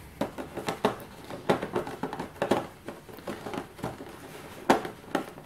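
Thin black plastic tray insert crackling and clicking as fingers prise a plastic miniature out of its slot: a string of small irregular clicks, with a few sharper ones.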